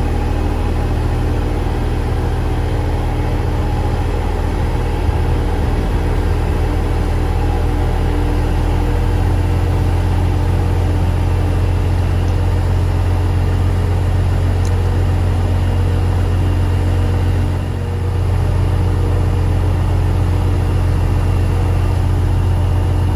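Grain truck engine running steadily, heard from inside the cab, while the truck's box is raised to dump wheat into the elevator pit. It gets a little louder about nine seconds in and dips briefly near the end.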